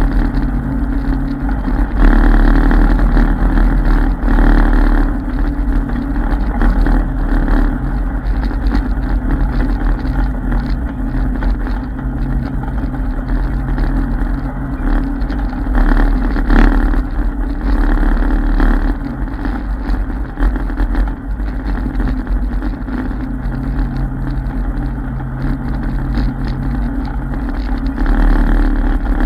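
ATV engine running while the machine rides along a dirt trail, its note rising and falling a little with the throttle over a steady low rumble.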